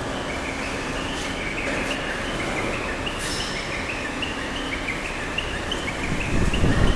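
Steady background noise of a large steel workshop hall, with a rapid run of short high chirps, about three or four a second at two alternating pitches, and a louder low rumble near the end.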